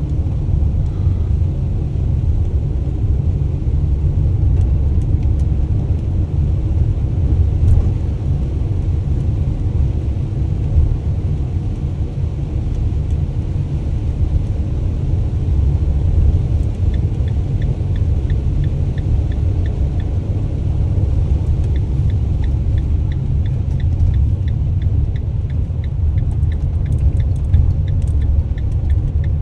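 Delivery van driving, with a steady low engine and road rumble heard from inside the cab. From a little past halfway, the turn signal ticks at an even pace, breaks off briefly, then resumes.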